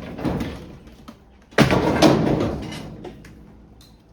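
A loud bang about a second and a half in, dying away over about a second, after a softer knock near the start.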